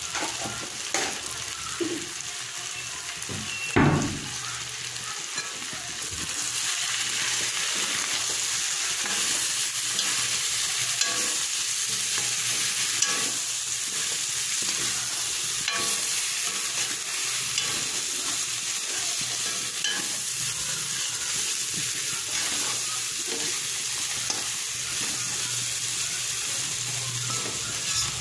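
Turkey meat sizzling as it fries in a wok, stirred with a metal spatula that scrapes and clicks against the pan, with one louder knock about four seconds in. The sizzle grows louder about six seconds in.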